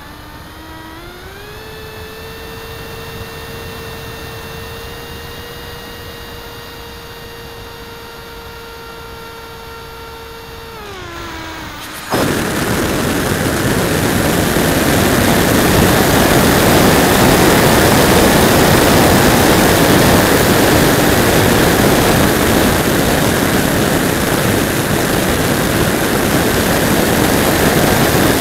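Radjet RC plane's 3800kv electric motor and 5x5 propeller whining, rising in pitch about a second in as the throttle opens, holding steady, then easing back around eleven seconds in. Then a sudden, much louder rush of wind noise on the onboard camera's microphone drowns out the motor.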